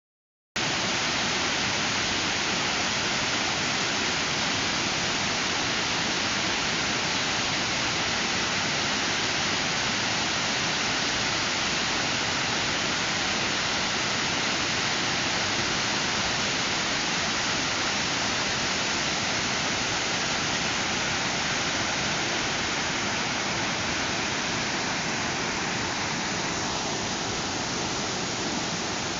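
Waterfall rushing steadily, an even wash of falling water without let-up.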